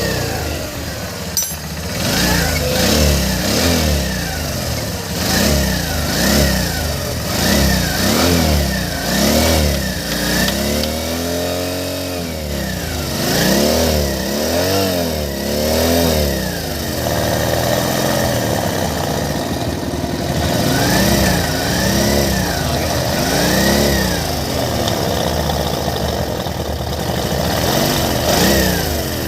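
Motorcycle engine revved in repeated short throttle blips, each rising and falling in pitch, about one a second, with one longer, slower rev about halfway through and calmer idling stretches between bursts.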